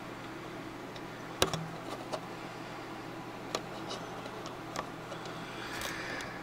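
Handling noise: a few scattered clicks and light knocks, the loudest about a second and a half in, and a short rustle near the end, over a steady low hum.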